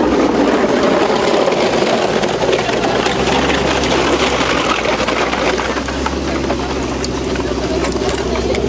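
Tracked snow vehicle with a front plough blade driving slowly past, its engine running and its steel-cleated tracks clattering in a fast, even rhythm. A low engine hum grows steadier from about three seconds in.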